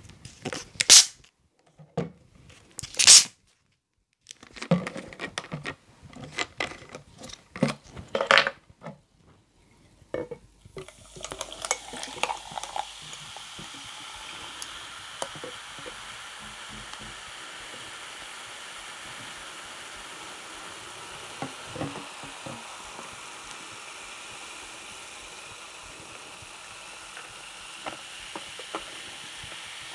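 Two plastic bottles of extra-carbonated soda (Pepsi Strong and Chilsung Cider Strong 5.0) twisted open with two sharp hisses of escaping gas, a second and three seconds in, followed by handling clicks. About eleven seconds in, the cola and cider start pouring over ice into glass mugs and fizz with a steady hiss.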